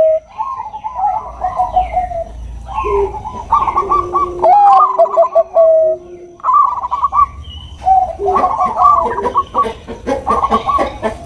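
Zebra doves of the Thai-bred perkutut bangkok line cooing: repeated phrases of quick staccato coos, each a second or so long. The phrases crowd together in the second half.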